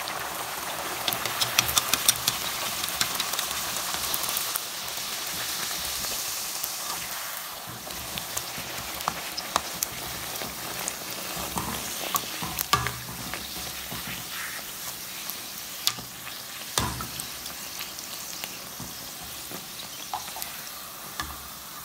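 Bhatura dough deep-frying in hot oil in a kadai: a dense sizzle and crackle, loudest in the first few seconds after the dough goes in, then steadier as the bread puffs up. A few sharp clicks from a slotted spoon turning it in the pan.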